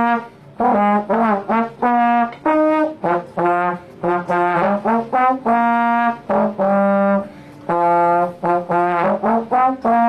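Solo trombone playing a lively tune of short separate notes with a few longer held ones, some notes sliding in pitch.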